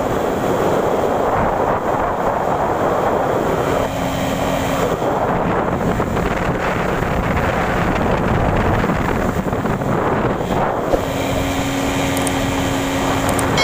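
A small boat's motor running steadily at speed, with wind buffeting the microphone and water rushing past the hull. A steady engine hum comes through more clearly near the end.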